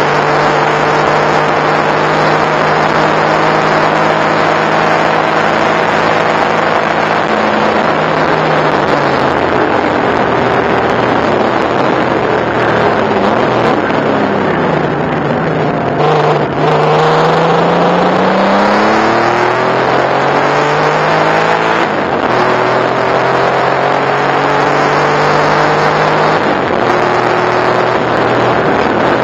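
Porsche 964 Turbo's air-cooled turbocharged flat-six at full power, heard from inside the race car's cockpit over wind and road noise. The engine note holds steady at high revs, then drops away in steps as the car slows for a corner, and climbs again in rising sweeps broken by several gear changes as it accelerates out.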